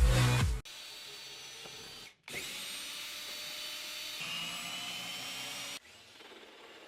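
Power drill motor running with a steady high whine in two spells, broken by a short silence about two seconds in and quieter near the end. Background music cuts off just before.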